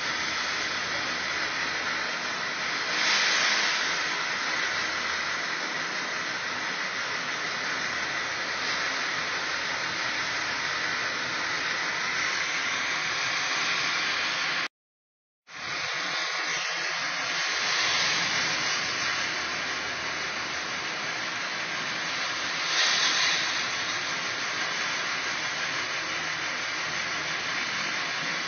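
Steady hissing machinery noise of a scrap-baling yard, where a CAT material-handler crane with a magnet loads a steel compactor. It swells in loudness a few times and cuts out completely for under a second about halfway through.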